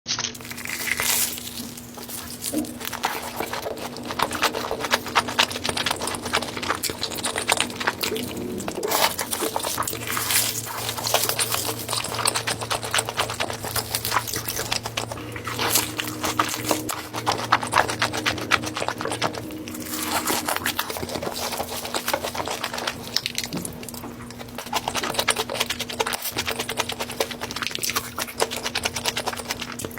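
Close-miked eating sounds: chewing, crunching and wet mouth sounds, dense crackles and clicks throughout, with a faint steady hum underneath.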